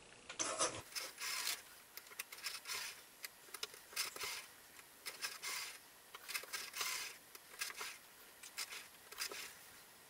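Dial of a 1960 Western Electric rotary desk telephone being pulled round and spinning back again and again as a number is dialled: a string of short, irregular bursts, one or two a second.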